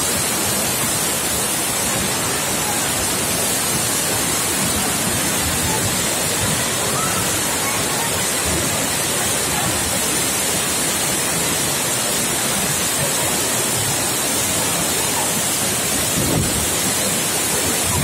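Waterfall plunging onto the rocks at its foot: a steady, loud rush of falling water.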